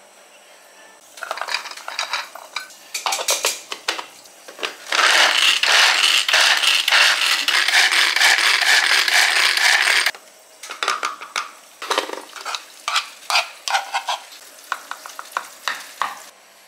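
Plastic hand-press food chopper pumped by hand: a dense, rapid clatter of strokes lasting about five seconds, with scattered plastic clicks before it and irregular taps and scrapes of a spoon against the plastic bowl after it.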